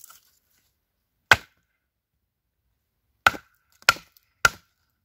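Hand axe chopping into hard wood while shaping a bushcraft mallet: four sharp strikes, one alone and then three in quick succession about half a second apart.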